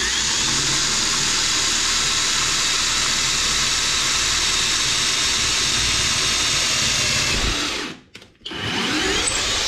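HOTO 12 V brushless cordless drill/driver boring a hole in a wooden board with an 8 mm wood bit, its motor running steadily at speed setting 25 for about eight seconds. It stops for a moment, then spins up again briefly near the end.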